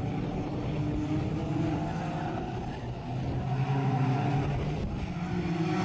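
Several short-oval race cars racing together, their engines revving with overlapping notes that rise and fall as they go around.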